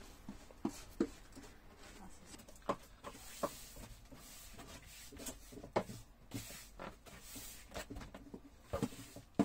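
Broom sweeping the floor of a camper van: soft bristle brushing with scattered light knocks and taps.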